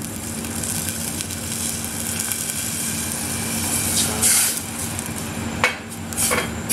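Plum-butter sauce in a saucepan sizzling and bubbling as dark beer is poured in and stirred with a wooden spoon, with a few sharp clicks and scrapes in the second half.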